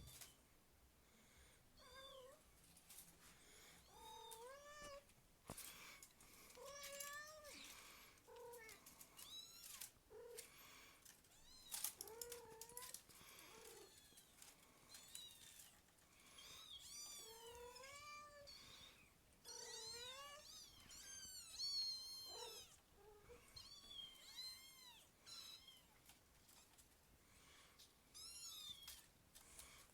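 Kittens mewing over and over: short, high calls that rise and fall in pitch, sometimes overlapping, with light clicks and knocks in between.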